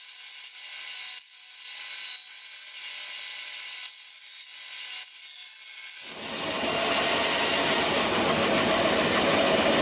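Plywood being cut with a saw, the strokes coming about once a second; about six seconds in the cutting becomes much louder and fuller.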